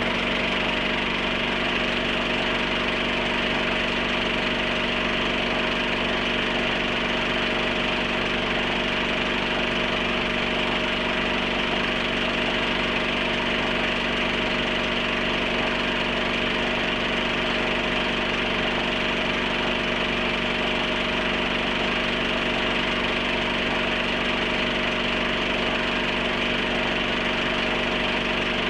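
Film projector running steadily, a continuous mechanical whirr with a constant hum.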